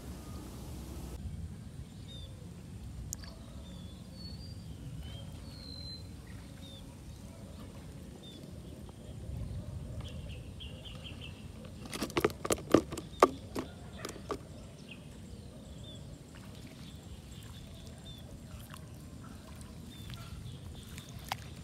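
Outdoor ambience: a steady low rumble with scattered short bird chirps. About halfway through, a quick run of sharp clicks or knocks stands out as the loudest sound.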